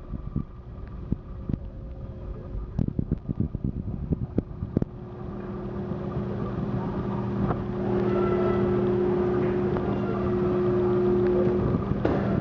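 The ferry Puyallup's engines running with a steady hum that grows louder about five seconds in and again near eight seconds. Scattered knocks and clicks sound over the first few seconds.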